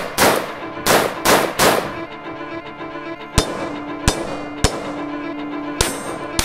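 Gunshots over background music with strings. Four shots in the first two seconds, each with a long echoing tail, then five sharper, shorter cracks spaced about half a second to a second apart.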